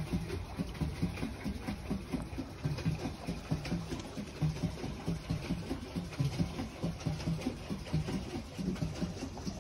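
Pedal boat being pedalled, its paddle wheel churning the water in a steady rhythm of low pulses about twice a second over a splashing hiss.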